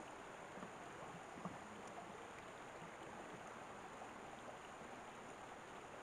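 Shallow rocky stream running over stones: a faint, steady rush of flowing water.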